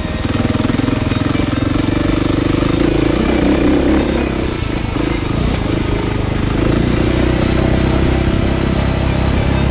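KTM 85SX two-stroke motocross bike engine revving hard under throttle, heard from on board. Its note drops away briefly about halfway through and then picks up again.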